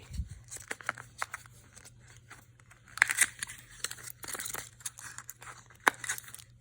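Plastic packaging crinkling and crackling in the hands as a replacement Apple Watch battery is taken out of it, with scattered sharp clicks and two busier bursts of rustling about three and four and a half seconds in.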